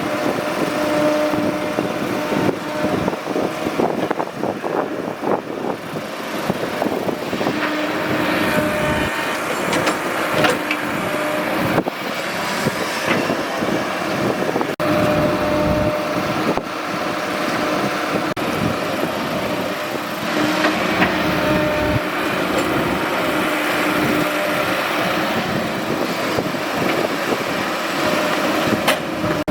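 Excavator's diesel engine running steadily, its hum fading in and out, with scattered knocks and clanks as it works.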